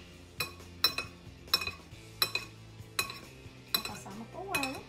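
A metal fork clinking against a ceramic bowl while it scoops beaten egg, about seven light, ringing clinks spaced a little under a second apart.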